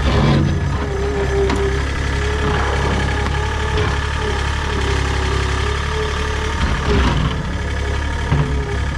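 Engine idling steadily, with a couple of brief knocks near the end.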